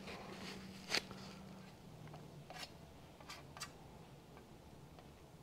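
Faint handling noises: a hand and rag rubbing and tapping on a metal motorcycle seat pan, with a sharp click about a second in and a few lighter ticks later, over a low steady hum.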